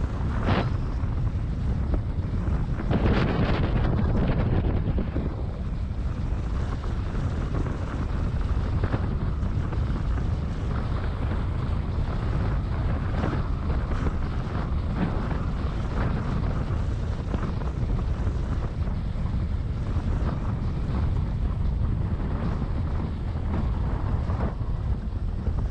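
Wind buffeting the camera's microphone and a Lindauer Top sledge's runners scraping steadily over packed snow during a fast descent, with short bursts of rattling about half a second in and again around three to four seconds in.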